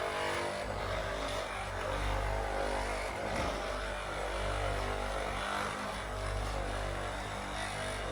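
Steady hum of a running motor, a stack of low even tones that thins out briefly a few times.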